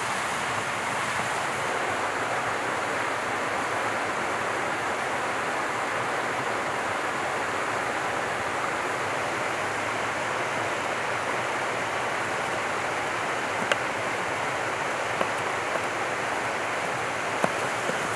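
A steady, even rushing noise throughout. Over it, a Serbian chef's knife knocks sharply on a wooden cutting board a few times in the last few seconds as it chops sun-dried tomatoes.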